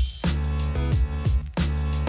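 Background music with a steady beat: deep electronic drum hits about twice a second under sustained instrument notes.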